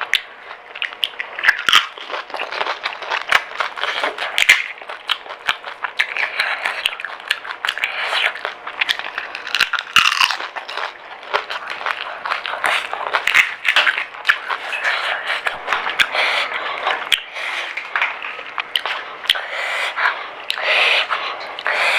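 Pani puri being eaten: crisp fried puri shells crunching and being chewed, with many sharp crackly clicks throughout.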